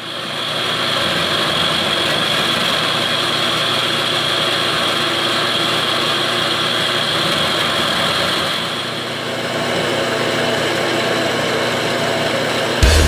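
Horizontal metal-cutting band saw running with its blade cutting through steel pipe: a steady mechanical whir with a high whine.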